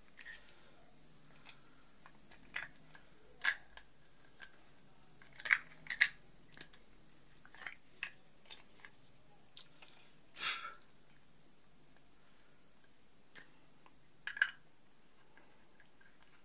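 Plastic parts of an earbuds charging case handled and fitted together: scattered light plastic clicks and taps at irregular intervals, with a slightly longer scrape about ten seconds in.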